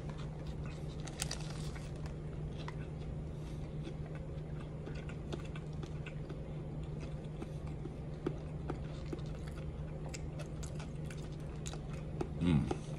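A person biting into and chewing a fried chicken sandwich, with small scattered crunches and mouth sounds over a steady low hum. Near the end there is a brief voiced sound with a rising pitch.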